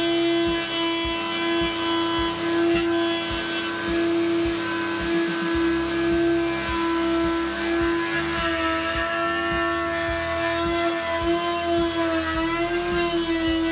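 Table saw running, its blade cutting a slot through a thin plywood strip pushed along the rip fence: a steady whine that sags a little in pitch now and then as the blade takes the cut.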